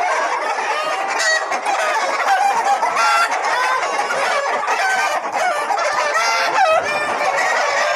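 A large flock of poultry calling continuously, with many short clucks and squawks overlapping into a steady din.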